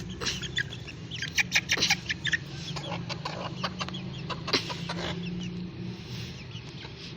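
Young chickens clucking and chirping among short knocks and scrapes as they are handled, over a steady low hum.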